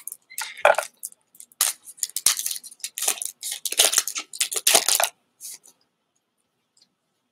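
Foil wrapper of a Pokémon TCG booster pack crinkling and tearing as it is opened, a run of crackly rustles over about five seconds.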